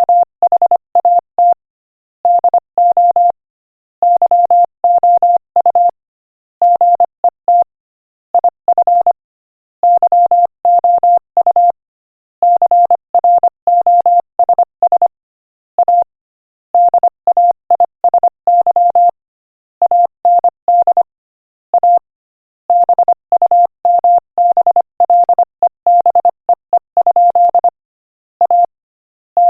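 Morse code at 25 words per minute: a single steady tone keyed on and off in quick short and long marks, grouped into words with short silences between them.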